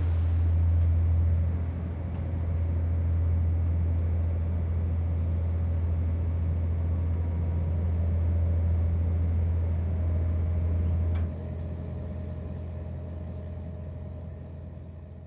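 Steady low drone of a fishing boat's engine, running evenly. About eleven seconds in it drops sharply in level, then fades away.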